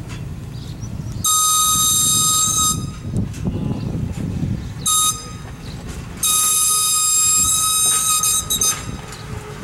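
A train whistle blows a long blast, a short toot and a second long blast, sounded for the road crossing as the train backs toward it, over the low rumble of the slowly rolling train.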